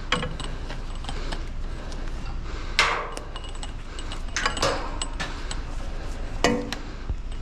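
Scrap metal being handled: scattered knocks and clinks of metal parts, the loudest about three seconds in, with a few more around four and a half and six and a half seconds.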